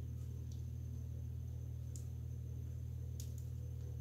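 Steady low background hum with a few faint, light clicks of tarot cards being handled.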